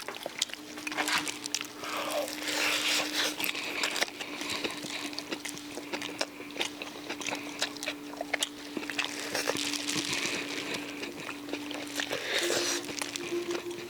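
People chewing and crunching oak-wood-grilled duck with crisp skin, with many small clicks, over a steady low hum.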